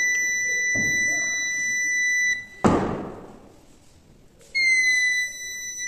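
Piezo buzzer alarm of an Arduino accelerometer earthquake detector sounding one steady high beep, set off because the accelerometer senses the board being moved. The beep cuts off after about two seconds, a loud thump follows, and the beep starts again near the end.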